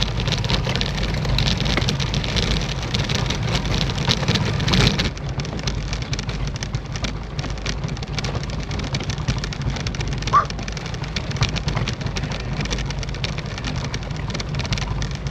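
Wind rushing over the camera microphone, with tyre and road noise from a road bike being ridden. The noise eases somewhat about five seconds in, and a brief high squeak sounds about ten seconds in.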